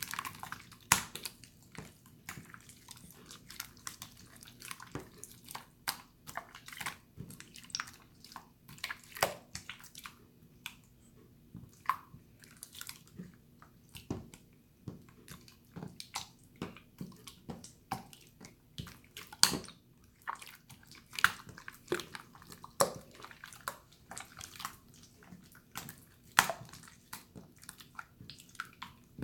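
Hands squishing and poking a jiggly water slime: wet clicks and squelches at irregular intervals.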